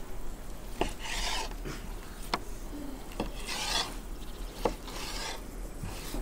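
Kitchen knife slicing through raw heart meat on a wooden cutting board: several short rasping strokes, with sharp taps as the blade meets the board in between.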